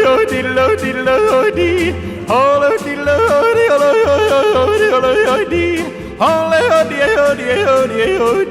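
A yodeling song: a voice yodeling, flipping quickly back and forth between low chest notes and high falsetto notes, over a backing with a steady beat.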